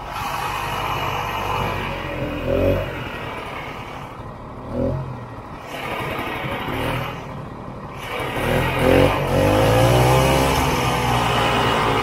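Vintage snowmobile's two-stroke engine running while the sled is ridden, the revs rising and falling several times. The longest and loudest rev comes about two-thirds of the way in.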